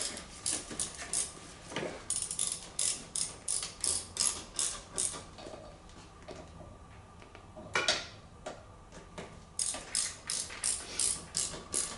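Hand ratchet wrench being worked in two quick runs of clicking, about four clicks a second, with a pause between them and one louder knock in the middle.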